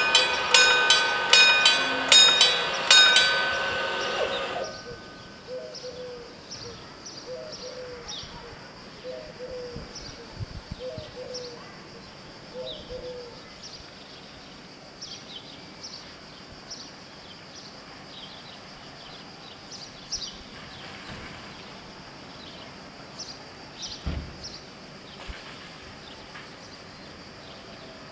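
Level-crossing warning bells striking rapidly, about two strikes a second, while the barriers come down; they stop about three seconds in and their ringing dies away. Scattered bird chirps follow over a faint steady high hiss.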